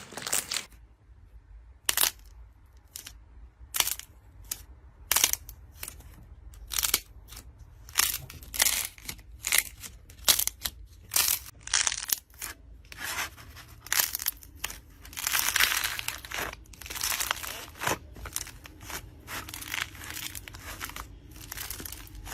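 Slime being squeezed and pressed by hand, giving a string of short crackles and pops, with a longer crackling stretch about two-thirds of the way through.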